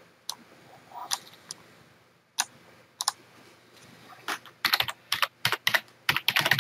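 Typing on a computer keyboard: a few separate clicks, then a quick run of keystrokes starting about four seconds in.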